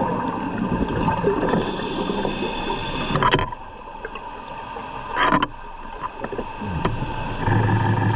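Scuba divers' exhaled bubbles gurgling from their regulators, recorded underwater over a steady hum. The sound is heavy for the first three seconds, eases with two short surges of bubbles, and grows heavy again near the end.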